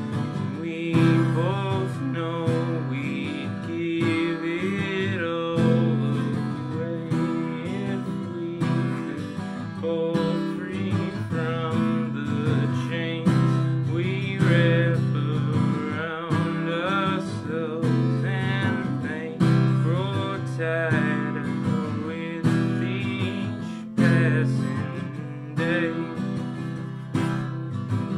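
Acoustic guitar played in an instrumental passage: fingerpicked and strummed chords with a sharp accent every second or two.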